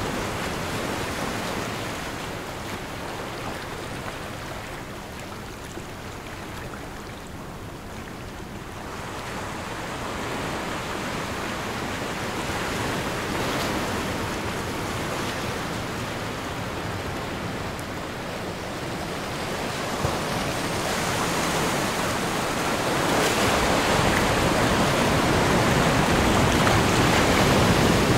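Recorded ocean waves: a steady wash of surf that ebbs to a lull and then swells louder toward the end. A faint, high steady tone comes in about two-thirds of the way through.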